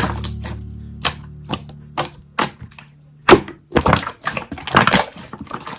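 Slime being squeezed and poked, making irregular crackling clicks and pops. Under the first few seconds, a song's last low chord fades out.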